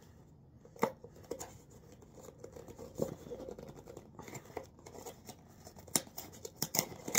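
Hands opening a small cardboard shipping box: scattered clicks, scrapes and rustles of cardboard and packaging, with a sharper click about a second in and a quick run of them near the end.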